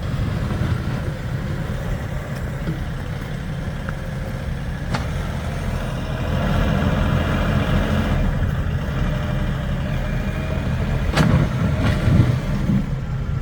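Compact tractor's diesel engine running and working under load while pushing a snow hump, with a few metallic clanks about five seconds in and again near the end.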